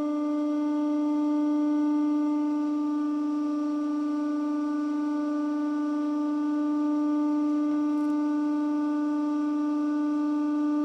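Hydraulic press's pump running with a steady whine at one unchanging pitch as the ram slowly lowers the acrylic tool onto the grapes.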